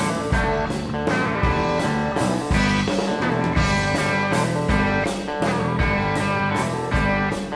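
A rock trio playing live without vocals: electric guitar and electric bass over a drum kit keeping a steady beat of about two strokes a second.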